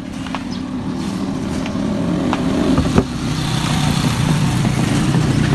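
An engine running steadily nearby, slowly growing louder, with a few light clicks, the clearest about three seconds in.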